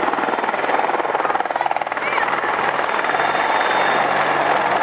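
AH-64 Apache attack helicopter flying toward the listener, its rotor blades beating in a steady, rapid chop over the rush of its twin turboshaft engines.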